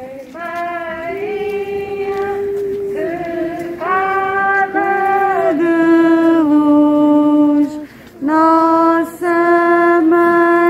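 Pilgrims singing a slow Portuguese Marian hymn, led by women's voices, in long held notes with a short pause for breath about eight seconds in.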